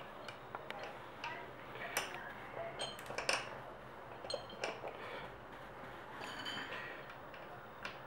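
Light scattered clicks, taps and rubbing from hands working an inner tube's metal valve stem into the valve hole of an electric scooter's hub-motor wheel. A few of the taps ring briefly and thinly, one of them about six and a half seconds in.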